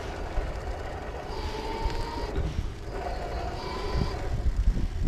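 Wind buffeting the microphone and tyre rumble while riding a BiciMAD electric bike along a paved path, getting louder near the end. Over it a faint whine comes and goes in spells of about a second.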